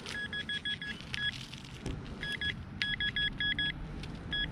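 Minelab Vanquish 440 metal detector beeping in short bursts of two to five high beeps as the coil sweeps back and forth over a buried target.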